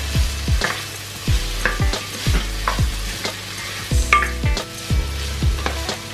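Sliced onions and spring onions sizzling in oil in a stainless steel pan, stirred with a plastic spoon that scrapes and knocks against the pan again and again.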